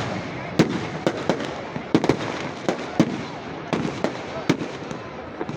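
Fireworks going off: a string of sharp bangs at irregular intervals, about two a second, over a steady background din.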